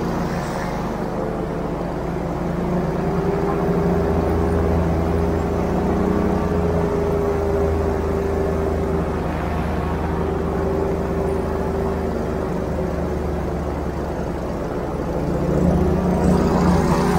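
Airboat's engine and air propeller running steadily under way, a constant drone that gets a little louder near the end.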